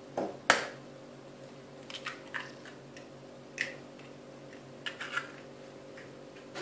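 A raw egg rapped once, sharply, to crack its shell, then a few light clicks and rustles as the shell is pulled apart and the egg is emptied into the bread, over a faint steady hum.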